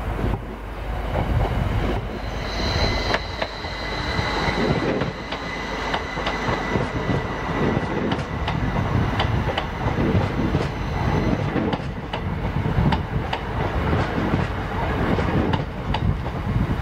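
Class 333 electric multiple unit passing close by. A steady high-pitched wheel squeal comes through the first half. Throughout, the wheels click and clatter over rail joints and points.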